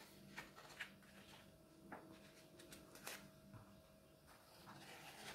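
Near silence with a few faint rustles and soft taps of paper as a page of a printed instruction booklet is turned, over a faint steady hum.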